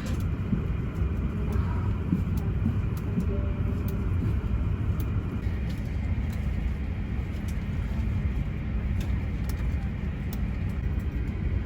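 Steady low rumble of an Airbus A350-1000 airliner cabin, with a few faint clicks scattered through it.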